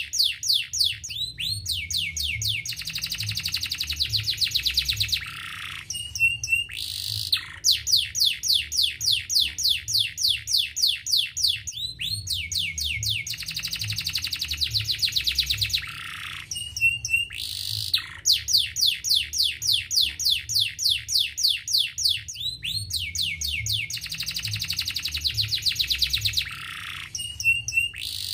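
Orange domestic canary singing long runs of rapid repeated chirps, each run with a buzzier stretch. The same song phrase comes round about every eleven seconds.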